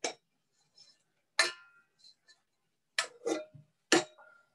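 Stainless steel bowl of a KitchenAid stand mixer clanking against the mixer as it is handled and lifted off. There are about five sharp metal knocks with a short ring after each: one at the start, one about a second and a half in, and three close together near the end. The mixer motor is off.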